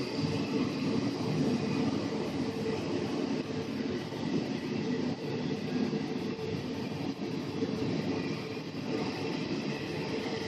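Steady low mechanical rumble with a few faint steady tones above it.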